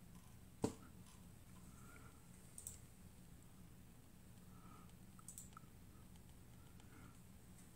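Near silence: room tone with a faint low hum and a few small clicks, the sharpest about half a second in.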